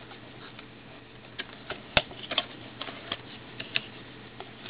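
Scattered light clicks and taps of hands handling a cardboard phone box and its paper inserts, the sharpest click about two seconds in.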